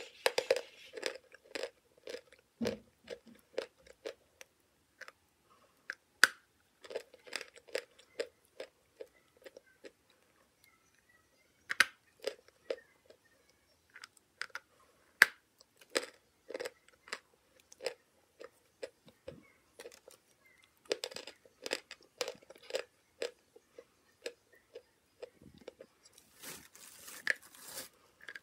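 A lump of white chalk being bitten and chewed close to the microphone: sharp, irregular crunches and crackles with short pauses, and a longer hissing, grinding stretch near the end.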